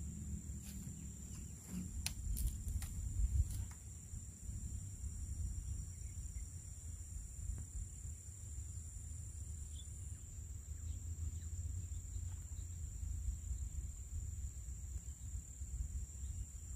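Steady, high-pitched insect chorus droning over a swampy marsh, with a low rumble underneath and a few sharp clicks in the first few seconds.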